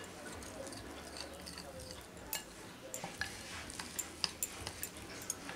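Steel spoon stirring thick gram-flour batter in a glass bowl, with irregular light clinks of the spoon against the glass that come more often from about two seconds in.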